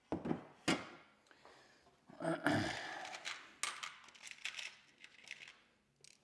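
Floorboard plates being handled and fitted together: scattered light metallic clinks and knocks, with a short scraping slide about two and a half seconds in and a run of quick ticks after it.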